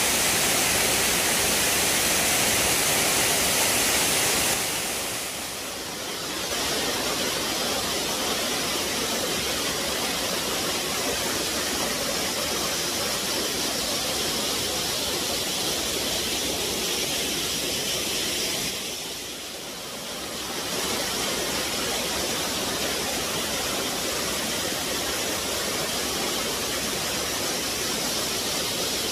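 Waterfall rushing in a steady, loud roar of falling water, dipping briefly in level twice.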